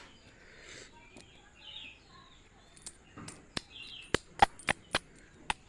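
Small birds chirping in the background, with a quick run of about seven sharp clicks or taps in the second half.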